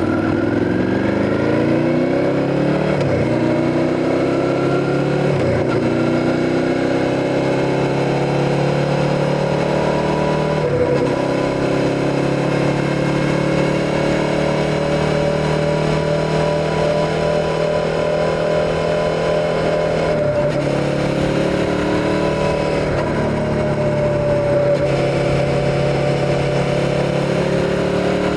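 Suzuki SV650's 645 cc V-twin engine accelerating up through the gears: the engine note climbs, then drops briefly at each of four upshifts (about 3, 5, 11 and 20 seconds in). After the last shift it holds a steady, slowly rising note at cruising revs.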